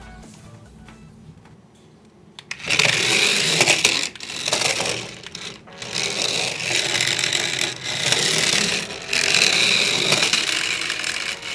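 Small motorised toy running along a countertop, its gear motor whirring in several spells of a second or two with short breaks between. Fading background music is heard before the whir starts, about two and a half seconds in.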